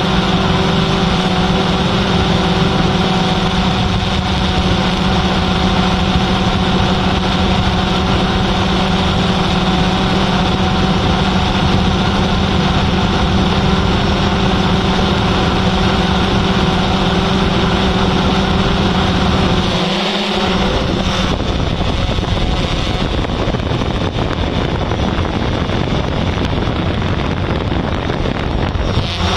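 Yuneec Typhoon H hexacopter's motors and propellers humming steadily. The pitch of the hum changes about twenty seconds in and settles back near the end.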